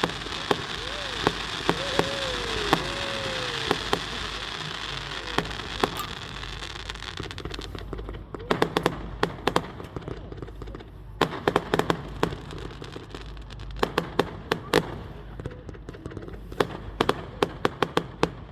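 Fireworks display: a dense crackling hiss for the first several seconds, then volleys of sharp bangs going off in rapid clusters.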